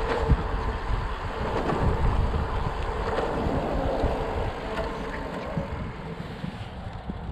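Wind buffeting the microphone, a gusty low rumble that eases slightly near the end.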